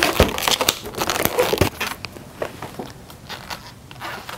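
Latex twisting balloons rubbing and crackling against each other as they are twisted and handled, with several sharp clicks in the first two seconds and quieter handling after.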